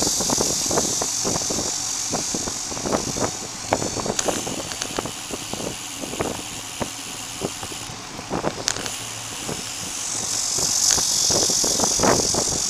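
Bicycle rolling along an asphalt path, heard from a camera mounted on its handlebar: a steady hiss of tyres and wind with frequent irregular rattles and knocks as the bike and mount jolt over the surface.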